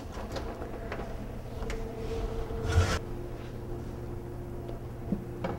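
Cookware being handled with oven mitts: a tagine taken from the oven and its conical lid lifted off, with rubbing and scraping, one solid thud about three seconds in, and a few light clicks near the end.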